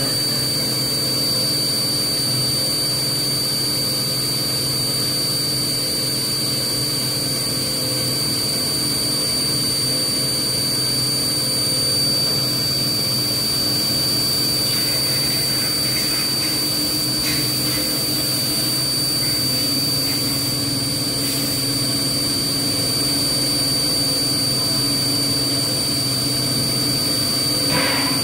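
4-axis CNC milling machine cutting a pattern into a metal roller with a small end mill under flood coolant: steady machining noise with a high whine held at one pitch.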